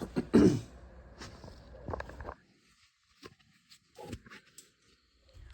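Handling noise: a loud rustle and thump at the start, then scattered light clicks and knocks of objects being picked up and set down. The background drops out to dead silence for over a second in the middle.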